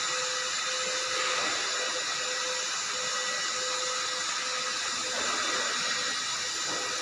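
Steady mechanical hiss with faint, constant whining tones, as of a machine running without pause.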